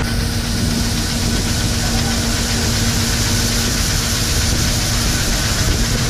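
Shelled corn pouring from an unloading auger into a steel truck bed: a dense, steady hiss and rattle of kernels over the steady drone of the harvesting machine's engine and auger.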